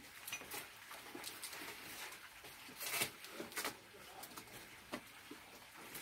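Faint scuffling with a few sharp knocks, the loudest about three seconds in, as a Labrador and a young calf move about close together on a shed floor.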